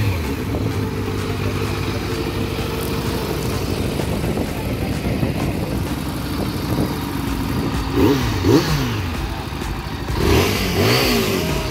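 Several motorcycle engines idling together, with the throttle blipped in short revs that rise and fall about eight seconds in and again a couple of seconds later.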